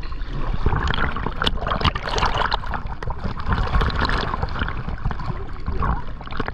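Lake water splashing and gurgling around a towed tube and a camera held at the water's surface, over a low rumble.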